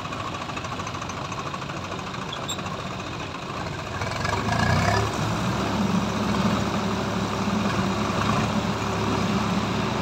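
Swaraj 735 FE tractor's diesel engine running steadily, then opening up about four seconds in, louder and deeper, as it works under load to pull a stuck trailer out of the river.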